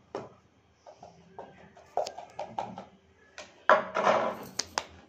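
Custard powder being tapped out of a plastic container into a stainless-steel pot, a run of short knocks, then a whisk scraping through thick cake batter and clinking sharply against the steel pot a few times near the end.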